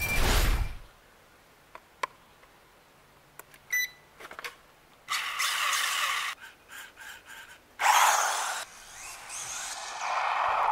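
A loud glitchy whoosh at the start, then a short beep near four seconds. The electric motor and drivetrain of a WLtoys A959 RC buggy whir in bursts of throttle, about five seconds in and most loudly near eight seconds, then run on steadily toward the end.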